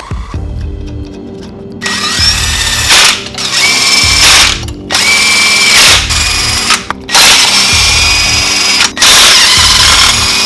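A power tool spinning up and running in five loud bursts of one to two seconds each, with a whine that rises as each burst starts. Background music with a steady beat plays underneath.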